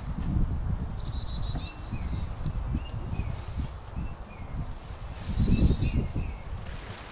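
Wild birds calling: a repeated short high note, and twice a quick falling run of high chirps, about a second in and again about five seconds in. Under them runs a low rumble, loudest a little before the end.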